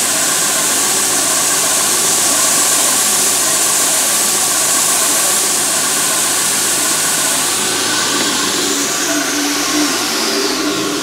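A large edge belt sander runs steadily while the sharp ends of the frets on a canjo neck are chamfered against the belt. About eight and a half seconds in, the motor is switched off, and the belt winds down with a falling whine.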